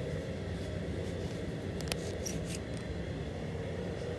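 Steady low hum of workshop background noise, with a few light clicks and ticks about two seconds in.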